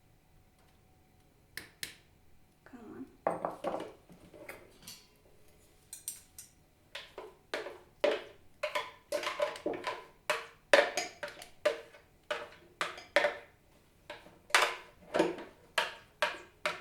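Kitchen clatter: a utensil knocking and scraping against dishes in quick, irregular strikes, about two or three a second. It starts after about a second and a half of quiet and gets busier toward the end.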